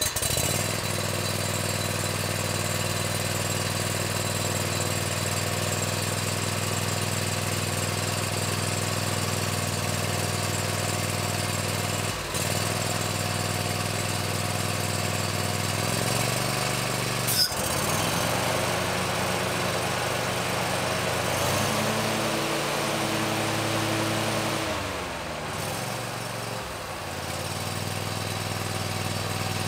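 Bad Boy Maverick zero-turn mower's engine running steadily just after starting. A sharp click a little past halfway, as the blades are engaged and spin up, and the engine note shifts for a few seconds near the end.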